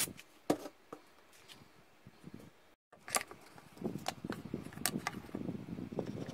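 Small objects being handled on a workbench: a few sharp clicks and taps in the first second, then, after a brief dropout, rustling and scraping with occasional clicks as a glue bottle and small wooden parts are picked up and worked.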